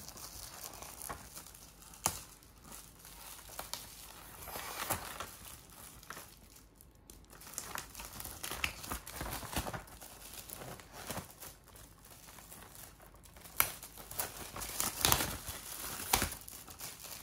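A gift's wrapping being torn open and crumpled by hand, in irregular crinkling bursts with a few sharper rips.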